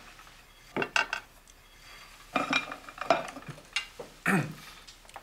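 Knives and forks clinking and scraping on dinner plates, in a few short clusters.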